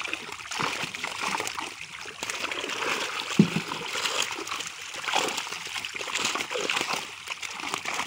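A net full of live fish thrashing and splashing in shallow water, an irregular churn of many small splashes as a basket is dipped in among them. One sharp slap stands out about three and a half seconds in.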